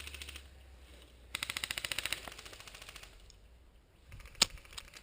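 Airsoft gun firing rapid full-auto bursts, about a dozen shots a second: one burst tails off just after the start and a second runs for about a second, starting a little over a second in. A single sharp snap, the loudest sound, comes about four seconds in.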